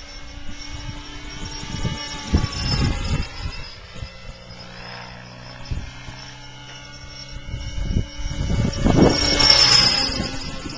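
Large electric-powered RC helicopter in flight: the steady whine of its electric motor and rotor. The sound swells twice as it comes nearer and is loudest about nine to ten seconds in, where the high whine drops in pitch as it passes close.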